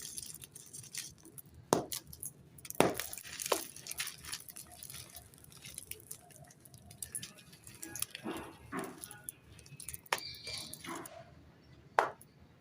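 Clumps of dry, gritty red sand crunching and crumbling: a scatter of sharp crisp cracks at uneven intervals over a faint fine crackle, with a few louder snaps.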